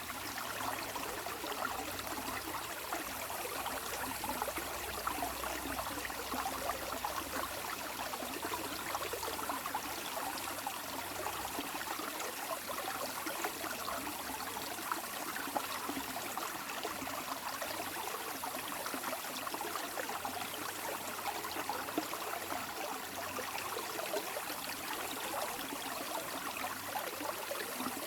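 Running water flowing steadily, a continuous fine splashing and trickling like a small stream.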